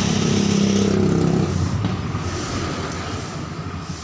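A motor vehicle's engine running past, loudest at the start and fading away after about a second and a half.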